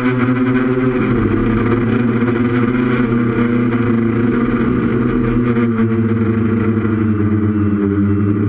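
Multirotor's brushless Tiger motors and propellers running steadily in flight on a 6S battery, heard from the onboard camera. From about two-thirds of the way in, a faint high beeping repeats about twice a second: the low-battery alarm going off.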